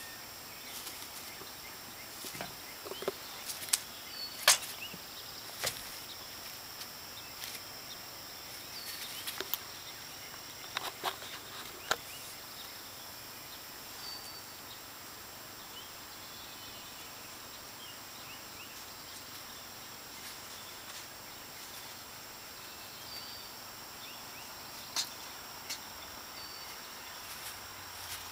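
Quiet outdoor background with a steady high-pitched drone, broken by scattered sharp clicks, loudest about four and a half seconds in, and a few brief faint chirps.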